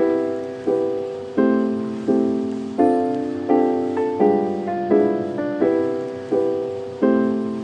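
Background music: soft piano-like chords struck at a steady, slow pace, each fading away before the next.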